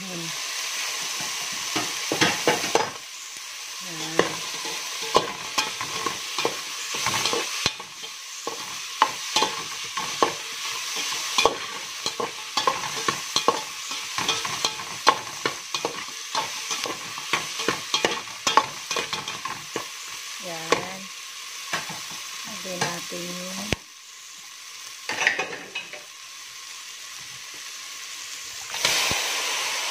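Diced onions and tomatoes sizzling in hot oil in an aluminium pot, with a steady hiss. A slotted metal spoon stirs and scrapes against the pot, clicking many times.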